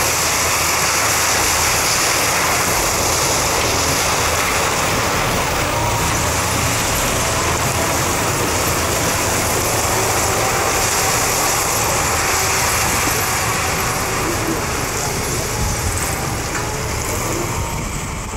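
Cameco sugarcane harvester at work in the field: a loud, steady engine noise with a strong hiss from cutting and chopping cane. It eases a little near the end.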